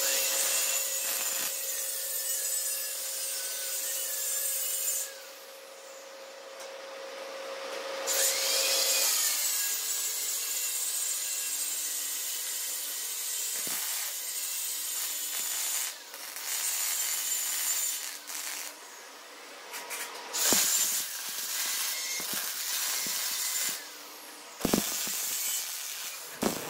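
Electric arc welding on steel: a harsh, steady crackle in several runs a few seconds long, with short pauses between them.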